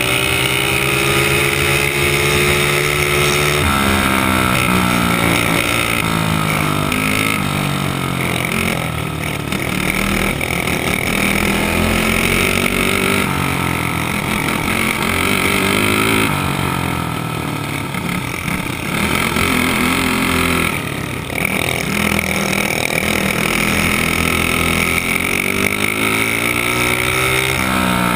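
Dirt kart engine under racing load, heard from on board, its pitch rising and falling several times as the kart accelerates and backs off around the track.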